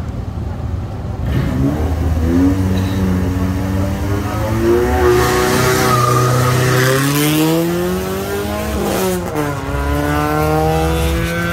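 A Renault Twingo rally car's engine revving hard, its note climbing steadily for several seconds. The pitch falls once, about nine seconds in, then climbs again.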